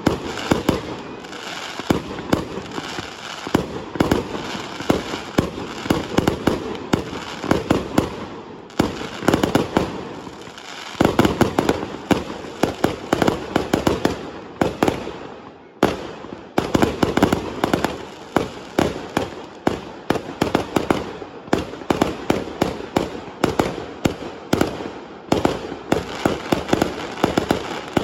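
Fireworks display: a continuous barrage of rapid, loud bangs and crackling, dipping briefly about sixteen seconds in before carrying on just as densely.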